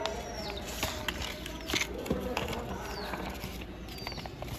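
Sheet of paper being folded and creased by hand into a box, with scattered crinkles and small taps. Birds chirp in the background in short, high, falling calls.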